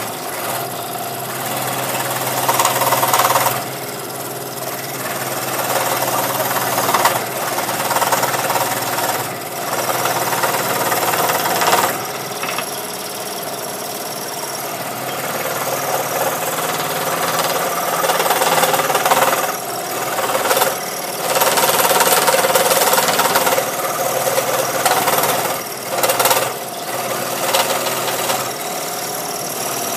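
Scroll saw running with its blade cutting through a wooden board. The sound swells and dips repeatedly as the wood is fed and turned against the blade.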